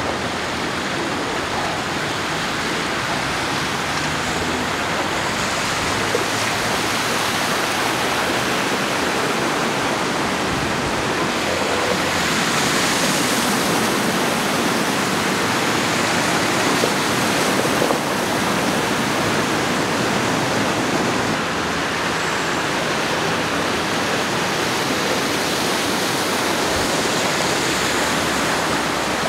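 Flash-flood water from a thunderstorm rushing across a street, a steady, loud rush of water.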